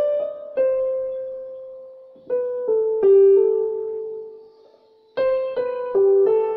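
Slow background piano music: single notes struck one after another and left to ring and fade.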